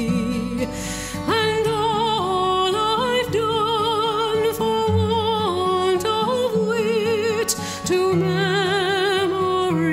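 Music with a singing voice holding long notes with a wide vibrato over steady accompaniment.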